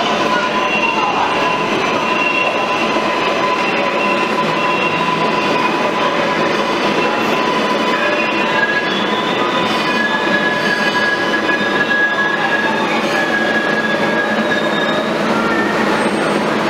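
R142A New York City subway train running into an underground station and slowing to a stop, a steady loud rumble of wheels on rail with high steady whining tones over it.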